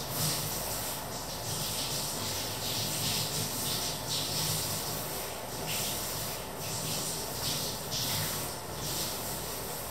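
A creamy mixture simmering in a red enamelled cast-iron casserole on an electric hob: a steady hiss with irregular swells of bubbling and sizzling.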